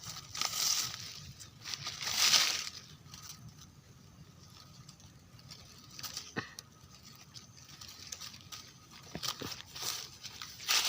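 Rustling and crackling of dry leaf litter and undergrowth, with two louder swishes in the first few seconds and a few sharp snaps later on.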